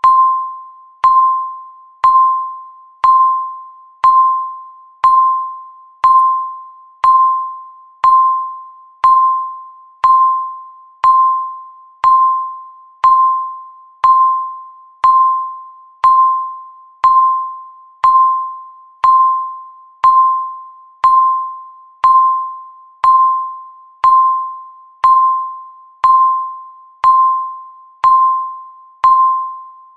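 Countdown timer beeping once a second: a single clear electronic tone each second, starting sharply and dying away before the next beep.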